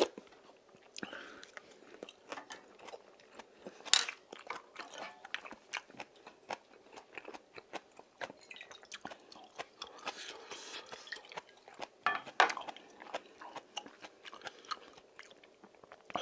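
Close-up eating sounds of fish stew: chewing, sipping and slurping broth, with small clicks throughout and two sharp clinks, one about four seconds in and one about twelve seconds in.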